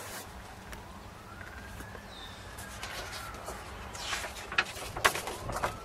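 A distant siren wailing, its pitch rising and falling slowly. A few sharp clicks and rustles come near the end.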